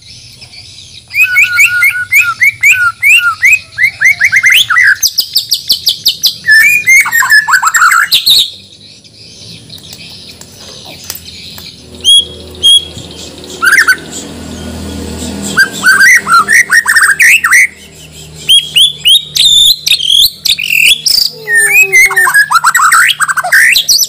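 A caged Bornean white-rumped shama (murai batu) singing loud bursts of rapid, varied whistled phrases. The song breaks off for several seconds in the middle, with only a few scattered notes, then resumes.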